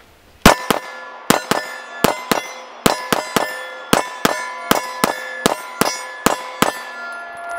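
Compact Glock pistol fired rapidly, about twenty shots in quick runs that stop shortly before the end, with a metallic ringing that hangs between the shots.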